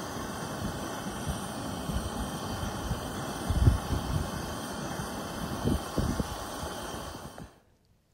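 Wind on an exposed fellside buffeting the microphone: a steady rushing hiss with irregular low rumbling gusts, the strongest about three and a half seconds in and again near six seconds. It cuts off suddenly near the end.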